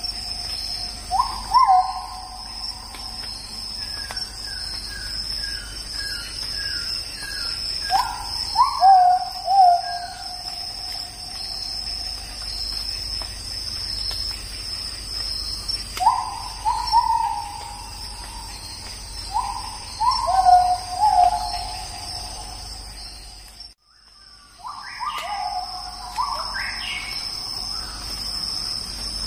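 Steady high insect trilling with bird calls repeating every few seconds, each a quick upward sweep settling into a falling, held note, and a quick run of short chirps in the first third. The sound drops out briefly about three-quarters of the way through.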